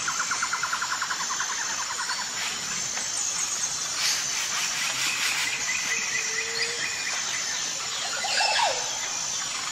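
Nature ambience of birds chirping and calling over a steady outdoor hiss, with a fast pulsing trill in the first two seconds and scattered short whistled notes after it.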